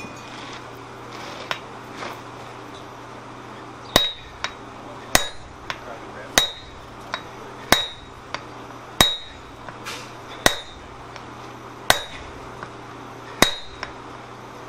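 Sledgehammer blows on a handled top tool punching a depression into a red-hot steel swage block, starting about four seconds in and landing steadily about once every second and a half. Each blow is a sharp clang with a short metallic ring, with a lighter knock between blows.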